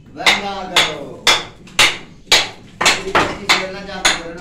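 Metal being struck in a steady rhythm, about two blows a second, each blow ringing briefly.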